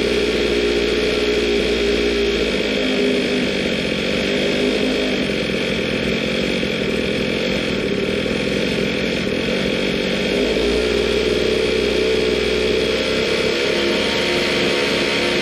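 Zenoah G23LH 23 cc two-stroke engine with a high-compression head kit running steadily through an expansion-chamber pipe, its pitch shifting a little a couple of times.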